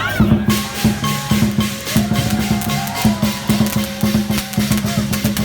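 Dragon dance percussion band playing: a drum beating a fast, driving rhythm with cymbals clashing over it.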